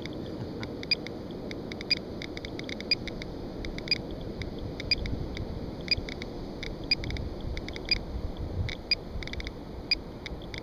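GQ GMC-300E Geiger counter ticking on the sand: sharp, high-pitched clicks, a strong one about once a second and fainter, irregular ones between, over a low steady rumble. The counter is reading around 820 counts per minute at a radiation hot spot.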